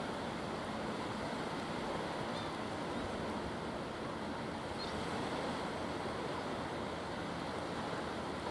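Steady rushing of sea surf and wind, without a break or a clear surge.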